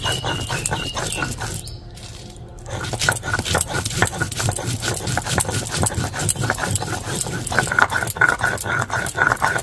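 Stone roller rocked back and forth on a ridged stone grinding slab (shil-nora), grinding a spice paste. It makes a rapid, gritty scraping and clacking, with a short pause about two seconds in.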